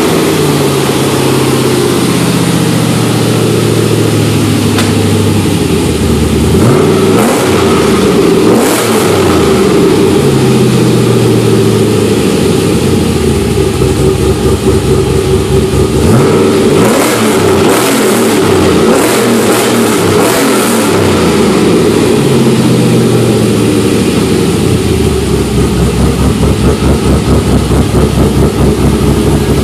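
LS V8 swapped into a GMC Syclone, with exhaust cutouts, running cold on one of its first starts. It idles loudly and is blipped up in revs a few times, about a quarter of the way in and again around the middle. Near the end the idle turns uneven and pulsing.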